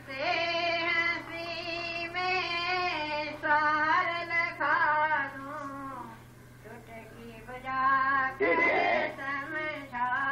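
A single voice singing slow phrases of long, held notes with short breaks between them, over a steady low hum.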